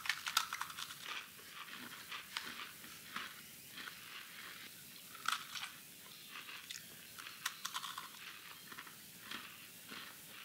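Crisp Anzac biscuits (oat and coconut) being bitten and chewed: a quick cluster of crunches right at the start, then irregular crunching for the rest of the time.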